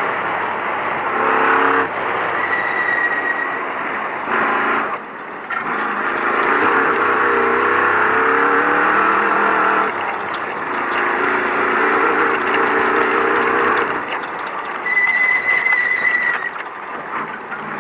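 Race truck engine heard from inside the cab at speed over rough dirt, revving up and easing off with the throttle, under a steady rush of tyre, gravel and chassis noise. It lifts briefly twice near the start, and a thin high whistle sounds twice.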